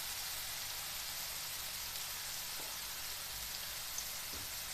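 Tomato, chillies, ginger and garlic frying in ghee in a nonstick kadhai, a steady sizzle with no stirring.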